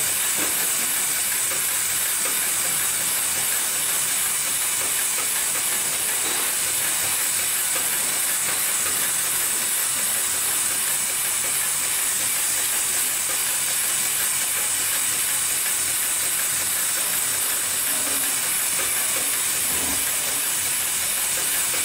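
HIGHTEX automatic buffing-wheel sewing machine running steadily as it stitches a stack of cotton cloth into a polishing wheel: a continuous, even, high-pitched hissing whir at a constant level, with no stops.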